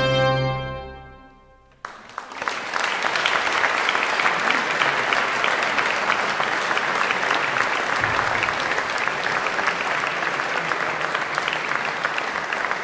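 The ensemble's final chord of natural trumpets, sackbut and organ fades out in the church's reverberation, then the audience applauds, starting about two seconds in and staying steady.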